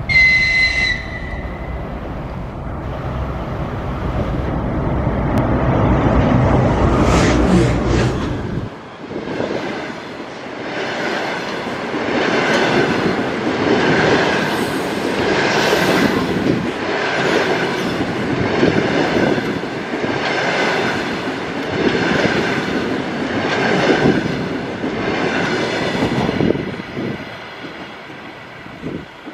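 EP20 electric locomotive and its double-deck passenger coaches passing at speed. A brief high whistle sounds right at the start, then the locomotive's deep rumble builds until it passes at about eight seconds. The coaches follow with a regular beat of wheels over the rails, about one every second and a half to two seconds, fading near the end.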